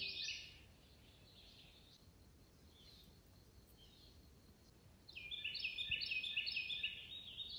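A songbird singing a fast run of repeated high phrases from about five seconds in, after a short burst of song at the start; between them only faint chirps over quiet woodland background.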